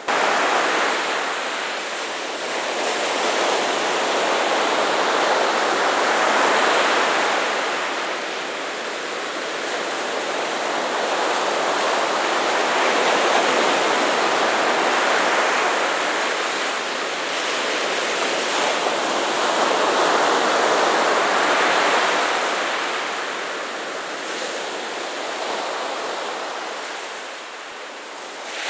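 Ocean surf breaking on a sandy beach: a steady rush of waves that swells and eases every few seconds.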